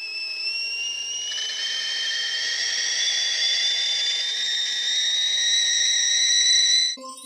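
Stovetop kettle whistling at the boil, a steady whistle over steam hiss that slowly rises in pitch and cuts off suddenly near the end.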